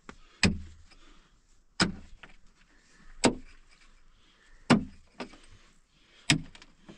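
A pickaxe striking a hard, stony earth floor, five sharp blows about one every second and a half, with a few smaller knocks of loosened dirt and stones in between.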